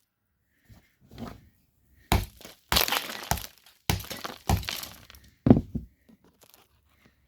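Coal cracking and crumbling as a drill bit bites into it: a run of short, irregular crunches and cracks.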